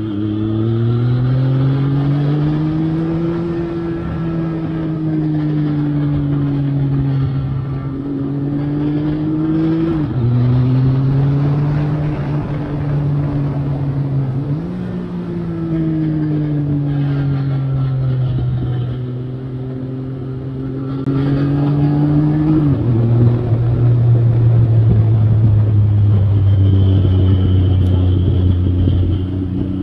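2003 Triumph Sprint ST 955i's three-cylinder engine running on the move, its revs rising and falling with sudden steps in pitch at gear changes: a drop about ten seconds in, a jump near fifteen seconds and another drop past twenty seconds, after which it holds a steady lower note. Wind rushes past the windscreen underneath.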